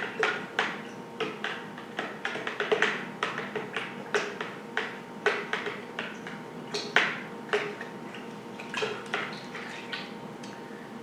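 Spoon stirring lemonade in a pitcher, knocking and clinking against its sides in irregular taps, a few a second, thinning out near the end.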